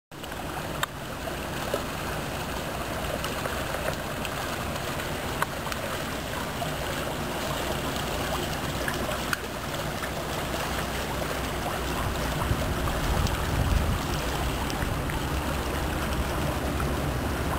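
Inland motor barge passing close by upstream: water washing along its hull over a steady low engine drone, the drone growing louder from about twelve seconds in.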